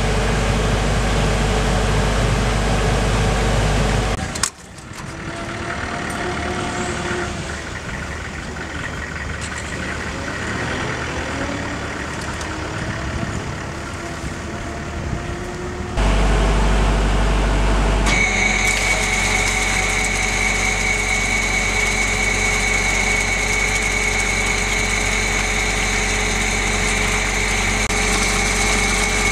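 Hammelmann DockBoy water-blasting unit's machinery running with a steady hum. About four seconds in it cuts abruptly, with a click, to a quieter stretch with slowly gliding tones; about halfway through it comes back louder, and soon after a steady high whine joins it.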